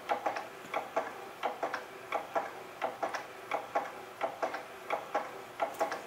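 Baby swing's mechanism ticking steadily, about four clicks a second, over a faint steady hum.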